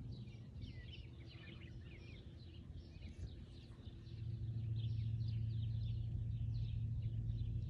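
Many small birds chirping in quick, overlapping calls. About halfway through, a low steady hum comes up underneath and holds.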